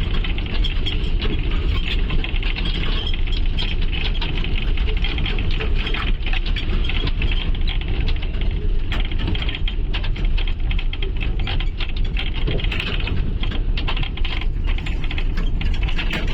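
Steady low rumble of a vehicle on the move, with many small rattles and clicks.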